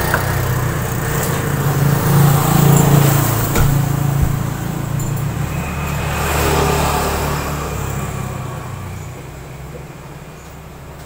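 A motor vehicle engine runs close by, swelling twice and then fading away. Near the end a spoon clinks lightly against a glass bowl a few times.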